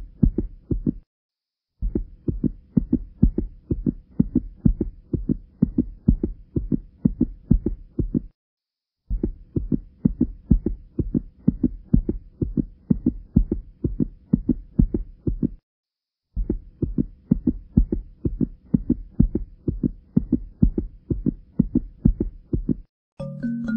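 Heartbeat sound laid under the pictures: regular low beats about two a second, stopping briefly three times.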